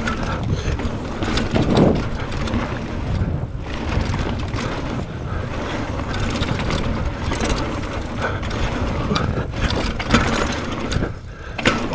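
Trek Marlin 6 hardtail mountain bike ridden fast downhill over rough trail with its coil-sprung fork locked out, so it rides rigid: the frame and parts rattle and clatter with many sharp knocks over the bumps. Under this is a steady rush of wind and tyre noise.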